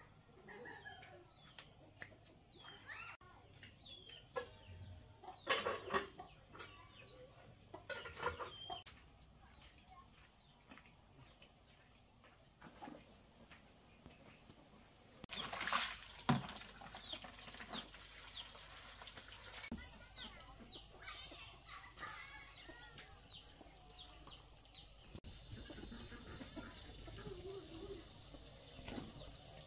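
Chickens clucking, with many short chirps, over a steady high-pitched hum. A brief louder noise comes about halfway through.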